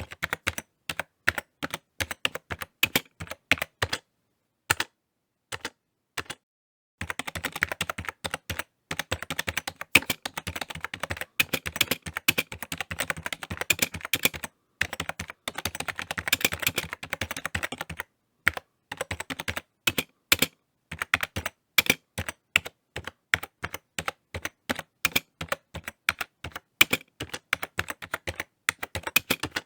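Typing on a computer keyboard: quick irregular runs of key clicks, with a pause of a couple of seconds about four seconds in and short breaks between bursts.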